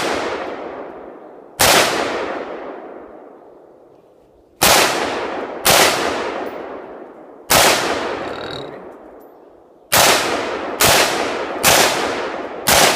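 Gunshots fired one at a time, nine in all, each followed by a long echoing decay; spaced a second or more apart at first, then coming about every half second near the end.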